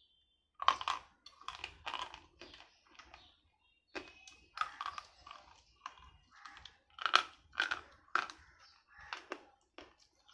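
Dry slate pencils being bitten and chewed: a string of sharp, crisp crunches at an uneven pace, with short pauses, the loudest about seven to eight seconds in.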